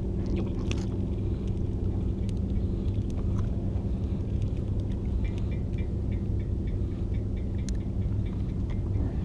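A motor running steadily with a low, even hum, most likely a boat engine; a run of faint light ticks comes midway.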